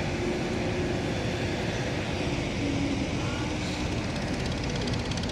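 Steady low mechanical rumble of a docked roll-on/roll-off ferry's engines together with truck engines running inside its vehicle deck, as the trucks get ready to drive off.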